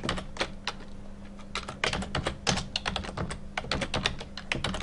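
Typing on a computer keyboard: quick runs of keystrokes with a short lull about a second in, over a steady low hum.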